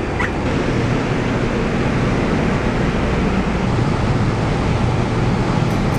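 Metro rail train running after its doors close: a steady rushing rumble with a low hum.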